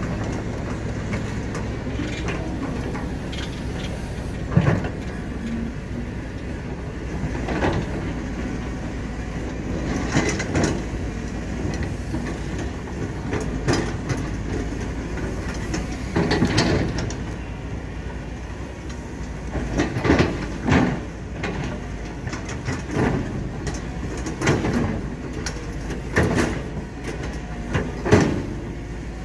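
Excavator at work: a diesel engine runs steadily under a series of short, loud metallic clanks and knocks, one every two to three seconds, from the bucket and machine working soil.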